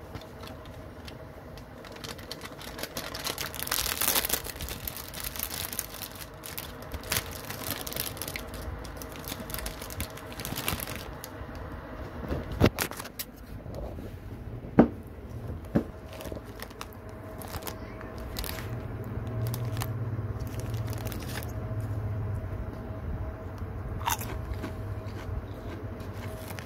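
A Lay's Classic chip packet, foil-lined plastic, crinkling and tearing open, then chips rustling in the open bag. A few sharp snaps in the middle are the loudest sounds.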